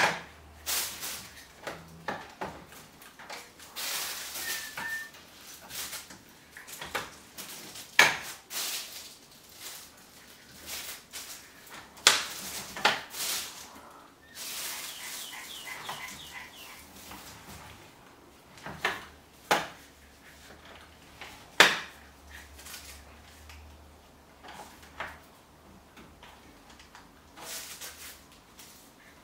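Folding beach trolley's steel handle being worked by hand at its hinge joints: irregular metallic clicks and knocks, a few of them sharp, with rustling of the plastic wrap on the handle in between.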